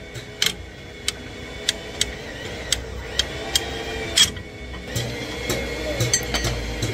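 Irregular sharp metal clinks and taps, about one or two a second, the loudest about four seconds in, as a bent steel-rod hook tool and a steel bar work against the inside of a truck wheel hub.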